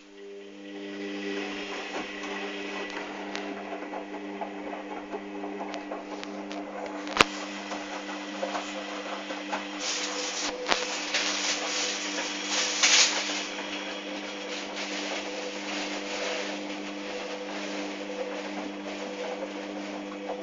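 Hoover Dynamic washing machine during a rinse: an electric hum switches on and runs steadily, with water rushing and gurgling through it that surges louder for a few seconds past the middle. A single sharp knock about seven seconds in.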